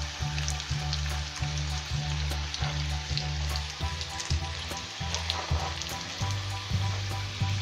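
Corn-tortilla potato quesadillas frying in hot oil in a frying pan: a steady sizzle scattered with many small crackles and pops.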